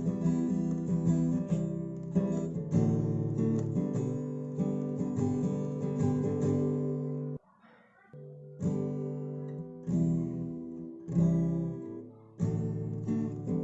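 Background music of a strummed acoustic guitar playing chords, cutting out briefly about halfway through before resuming.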